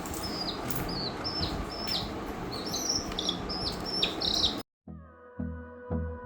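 A bird chirping over and over in short notes that drop in pitch at the end, over a steady background hiss. It cuts off abruptly about four and a half seconds in, and electronic music with a steady beat starts.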